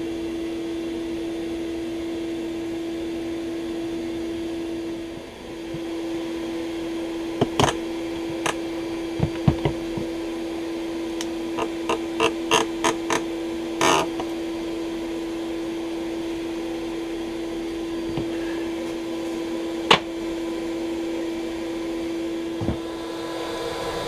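A steady hum, dipping briefly about five seconds in, under a run of sharp clicks and knocks from about 7 to 14 seconds in and another sharp knock near 20 seconds, from tools working on the wooden wall cavity and comb.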